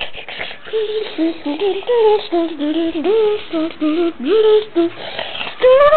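A high voice humming a wordless tune, moving note by note with a few slides between notes.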